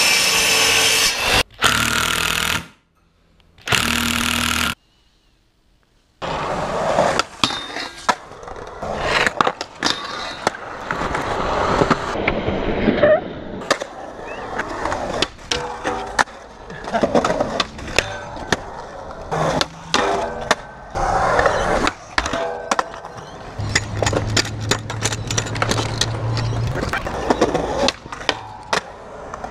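Electric mitre saw running and cutting wood in three short bursts, each stopping abruptly. Then skateboarding on concrete: wheels rolling, with many sharp clacks from tail pops and landings, and a steady low hum for about three seconds near the end.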